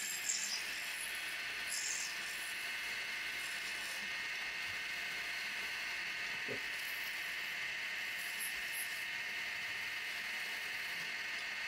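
Wood lathe running steadily, with a few short scratchy hisses as the tool cuts the spinning wood.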